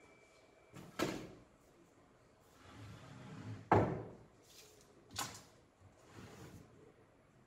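An oak board being handled on a wooden workbench: three sharp wooden knocks, the loudest about midway, with faint scraping and rustling between them.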